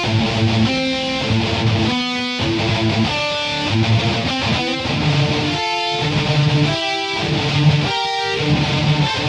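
Background music led by guitar chords that change about every half second to a second, with regular low pulses under them.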